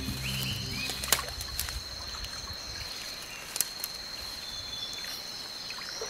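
Rainforest ambience: a steady high-pitched insect drone, with a couple of faint sharp clicks. Low background music fades out in the first second or so.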